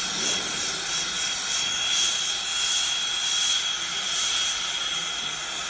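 Brazing torch flame burning steadily with a hissing rush as it heats a copper refrigerant line joint, a thin steady high tone running through it.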